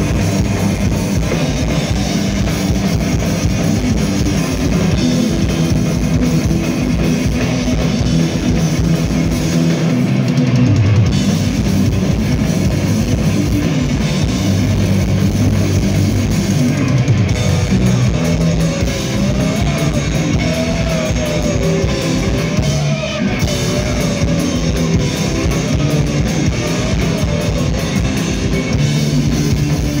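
Heavy metal band playing live: distorted electric guitars, bass and a drum kit, recorded from among the audience in a club, with a lead line that wavers in pitch in the second half.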